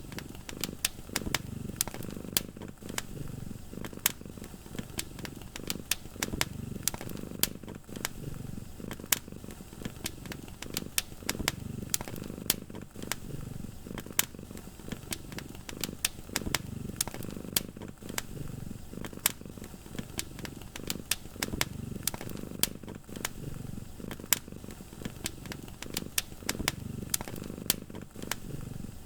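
Cat purring, a low rumble that swells and fades every few seconds, under a wood fire crackling with many sharp pops.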